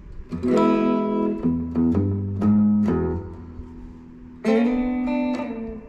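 Gretsch G2657T Streamliner Centerblock electric guitar being strummed: a quick run of chords, then a chord struck about four and a half seconds in and left ringing. It is pretty much in tune after a roller bridge and locking tuners were fitted.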